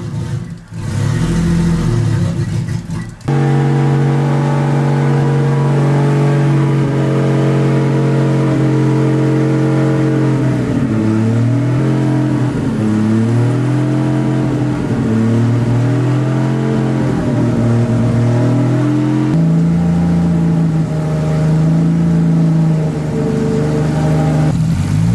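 Nissan Skyline's RB-series straight-six engine running on its first start in over two years. It is uneven with a couple of dips in the first few seconds, then holds steady. Through the middle it is revved up and down repeatedly, then it settles back to a steady speed.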